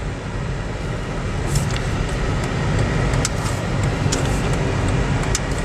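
Car driving slowly, heard from inside the cabin: steady engine and tyre-on-road rumble, with a few faint light clicks.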